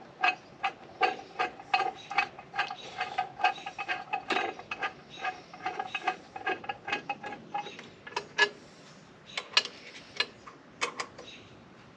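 Hand socket ratchet clicking in quick, even runs, about three clicks a second, as intake manifold bolts are run down; near the end the clicks come fewer and sharper.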